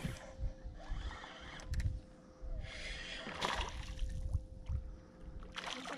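Small hooked fish splashing and thrashing at the water's surface as it is reeled in, with scattered knocks over a faint steady hum.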